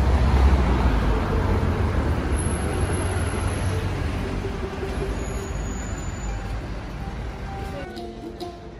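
Street traffic: a large road vehicle passes, loudest at the start and fading away over several seconds. Near the end it gives way to quieter background music.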